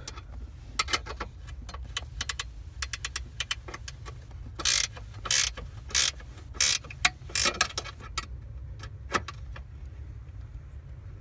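Ratchet wrench tightening a bolt that holds a ground wire: quick runs of clicks first, then about six longer ratcheting bursts in the middle, and a few last clicks near the end.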